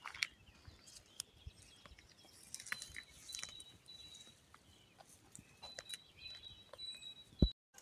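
Mattock striking and scraping dry garden soil in scattered, irregular light knocks, with a louder knock near the end. Birds chirp faintly, and a thin high steady tone comes and goes.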